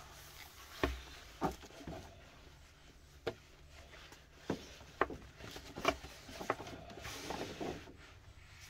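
A BabyBjörn One Air mesh baby carrier being handled: about eight separate sharp clicks and taps from its plastic buckles and fittings, and a short rustle of the mesh fabric near the end.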